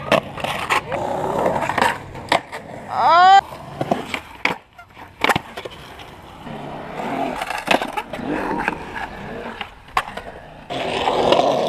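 Skateboard wheels rolling on concrete, with sharp pops and landing clacks from tricks, several in a row. About three seconds in comes a brief loud rising squeal, the loudest sound.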